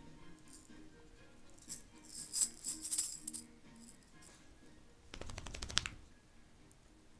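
Faint music playing, with bursts of high rattling jingle about two to three and a half seconds in, then a quick run of rattling clicks about five seconds in.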